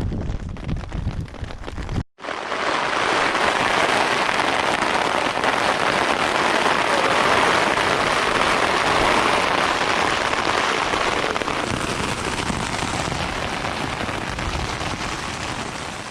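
Wind buffeting the microphone for about two seconds, then, after a sudden cut, heavy rain falling in a steady, even hiss.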